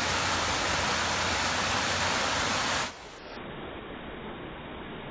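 Waterfall rushing as a steady loud hiss. About three seconds in it turns duller and quieter, losing its high end, as the iPhone slow-motion recording switches into its slowed section.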